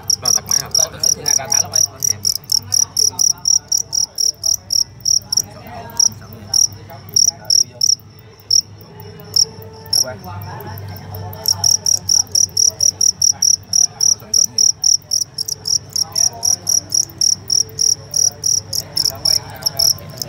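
Male fighting crickets chirping loudly in quick, even pulses of about four a second. The chirping thins out for a few seconds midway, then resumes.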